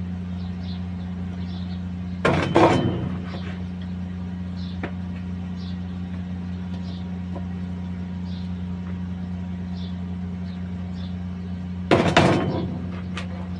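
Two short clattering knocks of kitchen handling, about two seconds in and again near the end, over a steady low hum.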